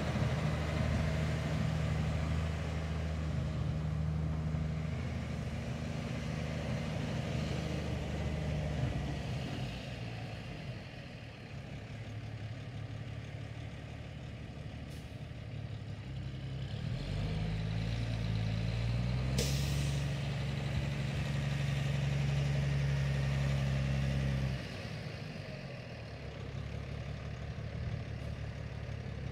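1998 International tandem-axle dump truck's diesel engine running as the truck drives across a gravel lot. The engine sound drops to a lower level partway through, then pulls louder for several seconds before easing off sharply about five seconds from the end. There is one brief hiss about two-thirds of the way through.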